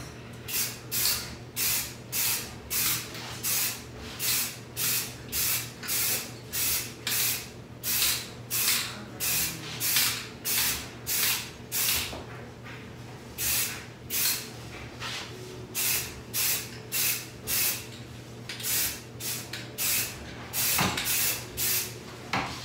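Aerosol spray-paint can spraying a frosted-glass coating onto a window pane in short repeated bursts, about two a second, with a brief pause about twelve seconds in.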